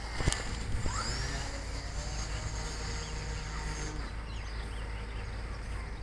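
Electric RC plane's motor and propeller whine, dropping in pitch as it passes about a second in, then holding a steady high whine that stops about four seconds in. A low wind rumble runs underneath, and a sharp click sounds just after the start.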